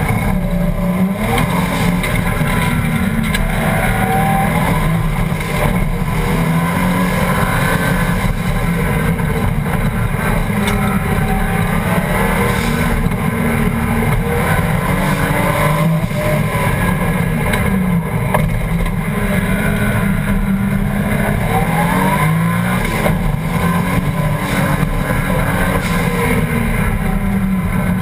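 Toyota 1JZ straight-six engine in a Ford Escort hillclimb car, heard from inside the cabin, driven hard up the course. The engine note climbs and falls again and again as the car accelerates, shifts and lifts for corners.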